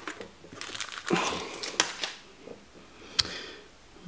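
Foil booster-pack wrapper crinkling in the hands as the pack is torn open and the cards pulled out, with a few light clicks and one sharp tick a little past three seconds in.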